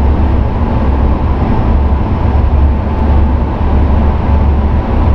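Steady cockpit noise of a Sukhoi Superjet 100 on short final: a loud, deep hum under a hiss of air, with a faint steady tone.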